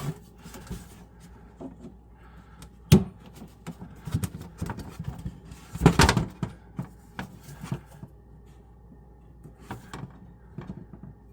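Scattered clicks and knocks of PEX pipe, a fitting and tools being handled in a cramped cabinet, with two louder clunks about three and six seconds in.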